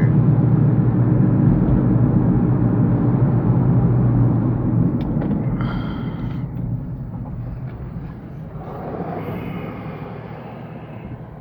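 Car engine and road noise heard inside the cabin, a steady low rumble that fades away over a few seconds about halfway through, leaving a quieter background.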